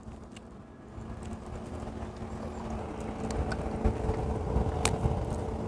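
Low rumble of wind and choppy water around a small boat, growing louder, with a faint steady hum and a few small sharp clicks as hands handle a crappie and hook it through the back.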